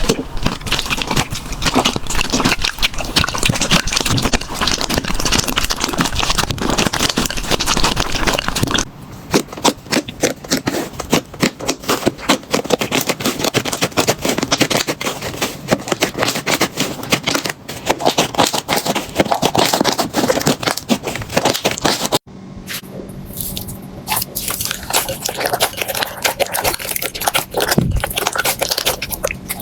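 Slime being pressed and worked by hand, with dense crackling and popping clicks. The sound changes abruptly twice, about 9 and 22 seconds in.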